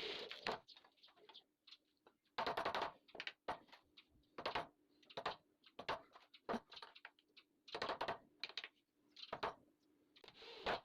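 Irregular knocks, clicks and short scraping sounds of wooden window pieces being handled and worked by hand.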